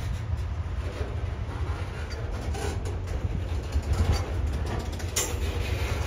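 A train rolling past on the tracks: a steady low rumble with scattered clicks of wheels over the rails, and one sharp click about five seconds in.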